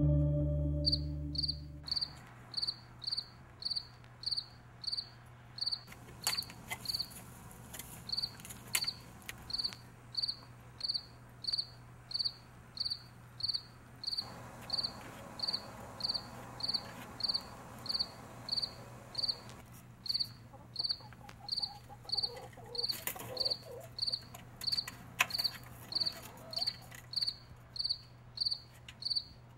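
A cricket chirping in a steady rhythm, short high chirps about one and a half times a second, over a faint low hum.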